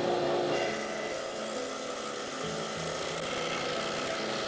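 Scroll saw running steadily as its thin reciprocating blade cuts a curve in a thin sheet.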